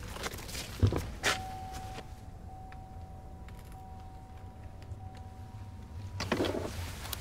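A car door clunks about a second in, then a faint steady high tone holds for about five seconds. Near the end, footsteps crunch on the snowy road.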